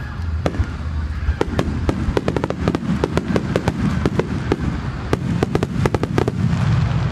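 Japanese starmine fireworks barrage: aerial shells firing and bursting in quick succession, a dense run of sharp bangs over a continuous low rumble. The bangs stop about six seconds in, leaving the rumble.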